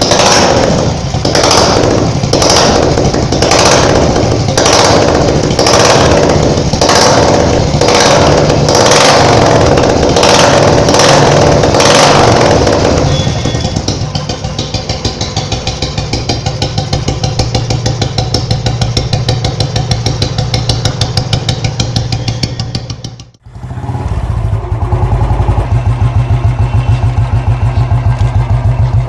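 Royal Enfield motorcycle exhausts fitted with aftermarket silencers, thumping with an even beat. For the first dozen seconds a loud pulse comes about once a second, then the thump runs steady. After a brief drop near the end, a second exhaust thumps steadily at a lower pitch.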